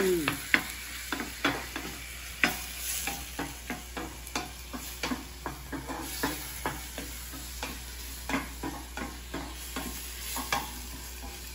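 Ground pork frying in a skillet, a steady sizzle with frequent sharp crackles and ticks as it is stirred with a wooden spatula.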